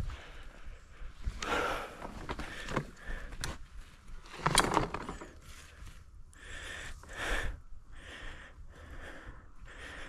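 Mountain bike riding down a rough dirt trail: uneven rattling and knocks from the bike over the ground, the strongest about halfway through, with the rider breathing hard.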